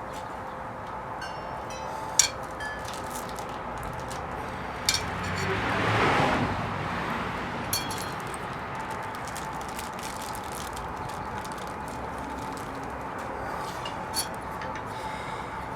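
A few sharp light clinks of hand tools and small metal hardware, spread out, over a steady background hum. A broad whoosh swells and fades about five to seven seconds in.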